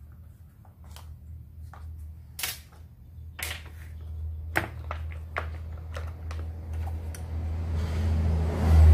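Scattered sharp clicks and light metal clinks of a Zenoah G3800 chainsaw's carburetor being worked loose and pulled off by gloved hands. Under them runs a low steady hum that grows much louder near the end.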